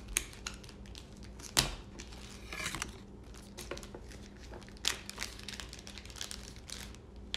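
Clear plastic packaging crinkling and crackling in the hands as a small wrapper is opened, a run of irregular sharp crackles, the loudest about one and a half seconds in.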